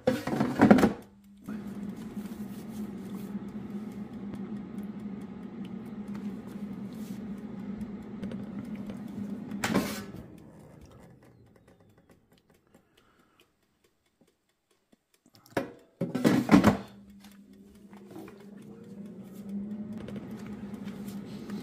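Tower Vortx air fryer: the basket slides in and clunks shut, and the fan runs with a steady hum. About ten seconds in the basket is pulled out with a clunk and the hum dies away to near silence; around sixteen seconds the basket clunks back in and the fan hum starts again.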